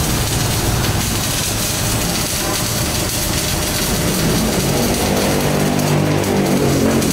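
Steady, loud crackling hiss of a welding arc burning. About four seconds in, a pitched, music-like sound joins it.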